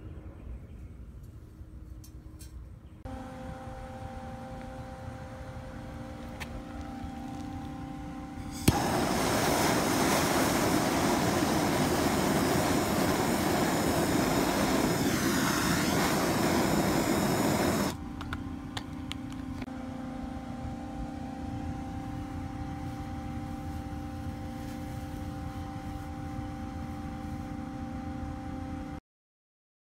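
Hand-held gas torch lit with a sharp pop about a third of the way in, then hissing loudly and steadily for about nine seconds before it is shut off. Under it, a steady hum with a few held tones.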